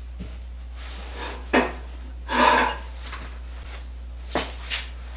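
Metal handling noises while moving shop machinery by hand: a sharp knock, then about a second later a louder half-second scrape, and two lighter knocks near the end, over a steady low hum.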